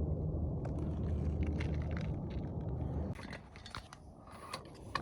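A steady low rumble that drops away about three seconds in, followed by light rustling and scattered clicks.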